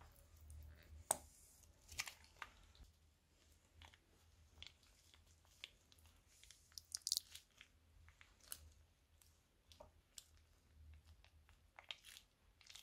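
Slime being squeezed out of a plastic piping bag into a bowl: faint scattered wet crackles and squelches with a few sharper clicks, the strongest about a second in and around seven seconds in.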